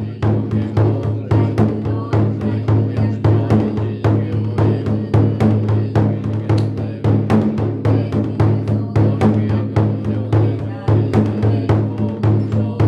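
Temple taiko drum beaten steadily for a goma fire ritual, about three to four strokes a second, over a low steady hum.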